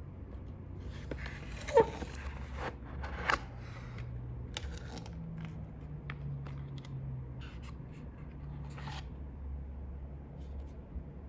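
Packaging being handled and opened: a series of short scrapes, rustles and clicks, the loudest a brief squeaky scrape about two seconds in, over a steady low hum.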